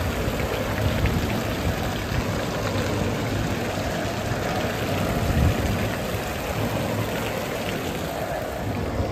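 Water from the Fischbrunnen's bronze spouts splashing steadily into its stone basin.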